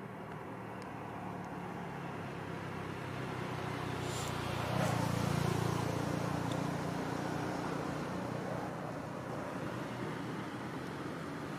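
A motor vehicle passing by: a low engine hum that swells to its loudest about halfway through and then fades away.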